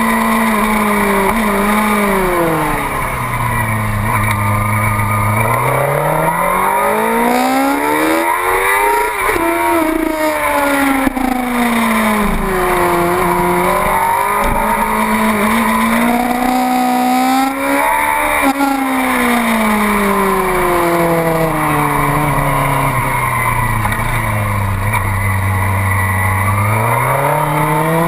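Yamaha YZF-R6's inline-four engine heard on board, its pitch falling as the bike slows and rising again as it accelerates, several times over, under a steady rush of wind noise.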